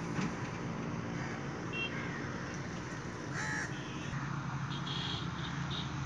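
A flock of birds calling: a few short calls about 2 s in, a louder one around the middle and several near the end, over a steady low hum.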